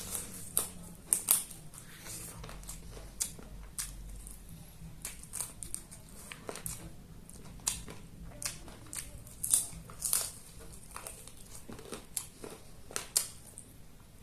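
Close-miked eating sounds: a person chewing food, with irregular crunches and sharp mouth clicks every fraction of a second to a second.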